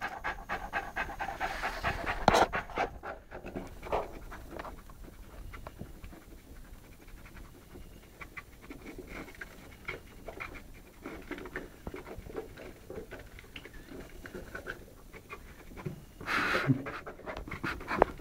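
An 11-month-old Saint Bernard panting in quick, even breaths, loudest in the first few seconds and fainter after that, with a louder breathy burst near the end.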